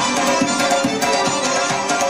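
Traditional dance music with a quick, steady drum beat under a held melody.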